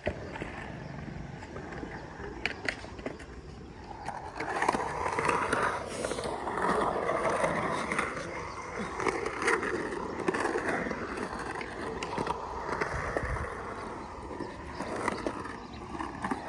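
Skateboard wheels rolling across a concrete skatepark bowl, the rolling noise swelling about four seconds in as the rider picks up speed through the transitions and easing near the end, with a few sharp clicks of the board.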